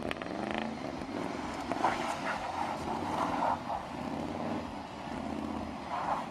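Chevrolet Z71 pickup truck's engine running as the truck moves slowly, its pitch rising and falling.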